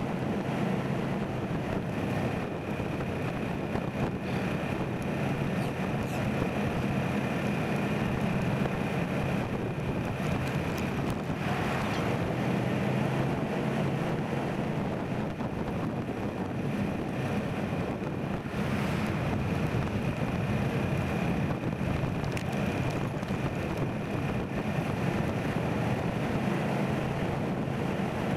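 Steady wind rush on the microphone and road noise of a vehicle driving along at an even speed, with a thin steady high tone running through it.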